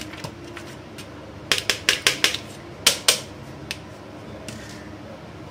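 Plastic spoon knocking and scraping on a plastic plate and bowl rim as chopped onions are tipped into a bowl of boiled chickpeas: a quick run of light clicks about a second and a half in, then a few more spaced out.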